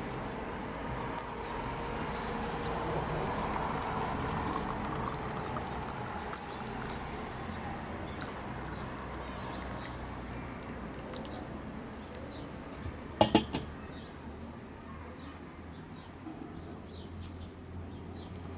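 A steady rush like liquid being poured or running, strongest in the first half and fading, with a quick cluster of sharp clinks, the loudest sound, about thirteen seconds in.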